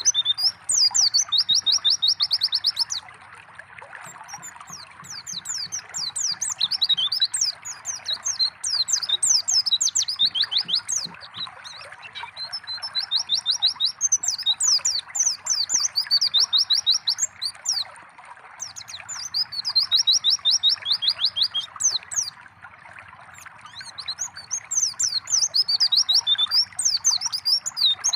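White-eye (pleci) singing in bouts of high, quick chirping phrases and rapid trills, with short pauses every several seconds, over a steady trickle of water.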